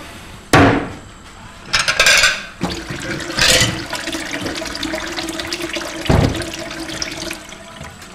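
Kitchen tap running into a stainless-steel sink while a plate is washed with a sponge, with splashes and clinks of dishes. A sharp knock comes about half a second in and a dull thump near the end.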